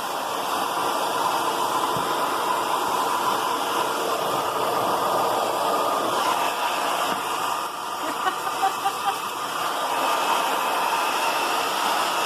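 Handheld hair dryer blowing steadily. Its sound dips briefly about eight seconds in, followed by a few short pips.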